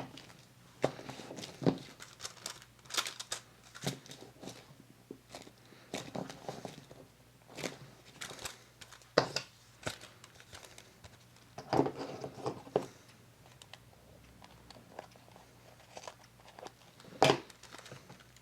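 Paper and card being handled, folded and pressed while a pocket is glued closed: irregular crinkles, rustles and light taps, the sharpest about 9 and 17 seconds in.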